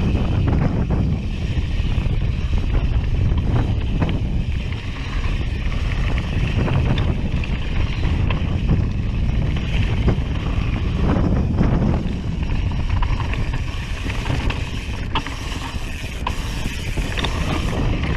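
Mountain bike rolling fast over a dirt pump track, with steady wind buffeting on the microphone and tyre rumble, and scattered knocks and rattles from the bike over the rollers.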